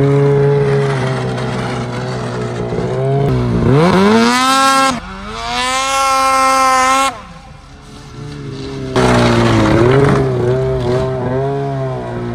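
Ski-Doo two-stroke snowmobile engines in a string of short clips: running steadily at speed, revving sharply about four seconds in, with abrupt cuts between clips. Near the end a sled's engine revs up and down as it is driven up a ramp into a trailer.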